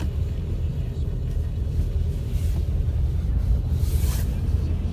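Steady low rumble of a car's engine and tyres heard from inside the moving vehicle, with two brief hissing swooshes, one about halfway through and one near the end.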